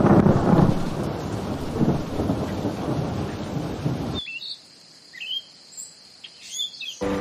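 Thunderstorm sound effect: a loud rumble of thunder at the start over steady heavy rain. About four seconds in the storm cuts off, leaving a quiet background with a few short bird chirps.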